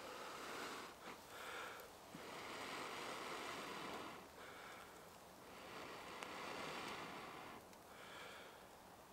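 A person blowing several long, steady breaths into a dry-grass tinder bundle, with short pauses to draw breath between blows. The blowing feeds air to a char-cloth ember to make it burst into flame.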